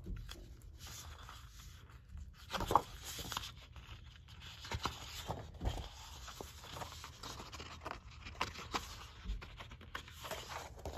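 Sheets of scrapbook paper rustling and sliding against each other as they are handled and flipped, with a few sharper crackles, the loudest about a third of the way in.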